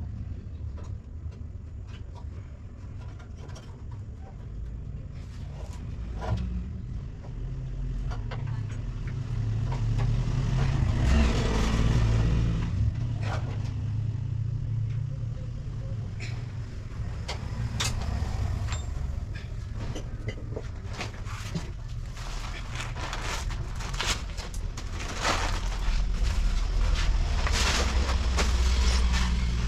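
Bajaj RE auto-rickshaw engine running with a steady low rumble that grows louder about ten seconds in and again near the end, with scattered metallic clicks and knocks.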